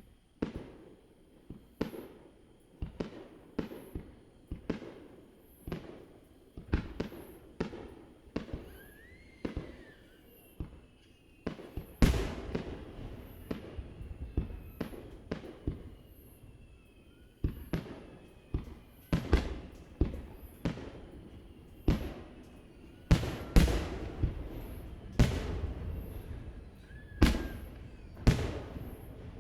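Fireworks shells bursting in a string of sharp bangs, each trailing off in a decaying echo. At first they come about once a second, then they grow denser and louder from about twelve seconds in.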